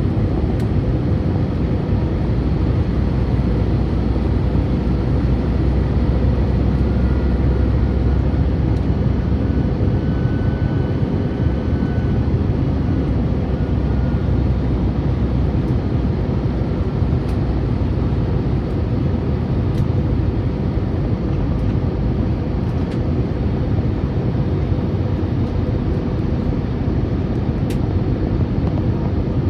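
Steady cabin noise of an Airbus A321 airliner in flight: a constant low rumble of engines and rushing air.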